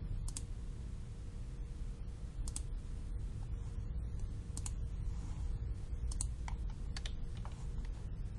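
Computer mouse clicking a few times, single sharp clicks spaced irregularly a second or two apart, over a steady low hum.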